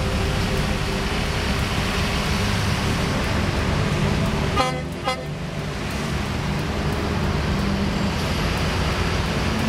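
Tow trucks and flatbed wreckers driving slowly past in a line, their diesel engines and tyres making a steady low rumble, with two short horn toots about halfway through.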